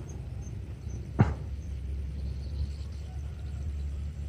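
A fishing rod swished through a cast about a second in: one short whoosh falling in pitch, over a steady low rumble.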